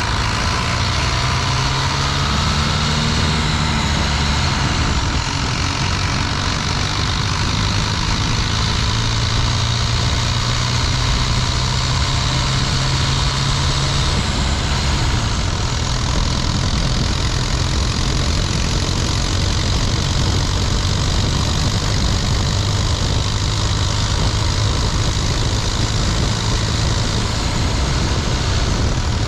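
Cummins 4BT 3.9-litre four-cylinder turbo-diesel running steadily under way, heard up close in the open engine bay. Its note drops about halfway through.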